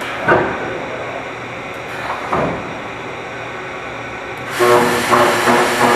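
Production-line machinery working: two knocks, then about two-thirds in it gets louder, with a hum pulsing a few times a second.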